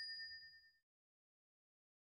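Notification-bell sound effect: a bright, high bell ding with a few clear tones, fading out within the first second.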